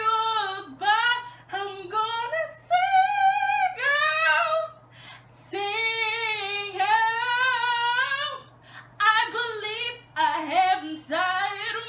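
A young woman singing solo without accompaniment, in several phrases of held, wavering notes and quick runs, with short breaths between phrases.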